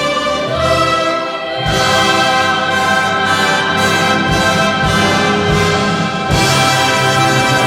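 Orchestral music with brass, without singing, swelling fuller and louder about two seconds in and again near the end.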